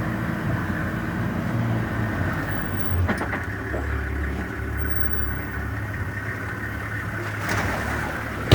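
Vehicle engine running steadily with a low drone, with one sharp knock right at the end.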